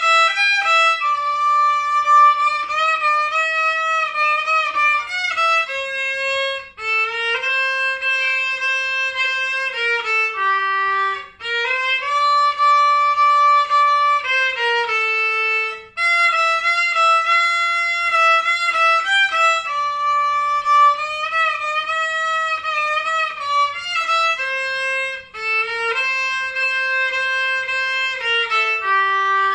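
Solo violin played with the bow: a melody of held notes in phrases with short breaks between them, the opening phrase played again about halfway through.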